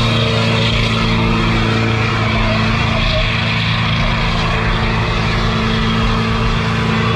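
Pickup truck engine held at steady high revs through a smoky burnout, with a steady hiss of spinning tyres.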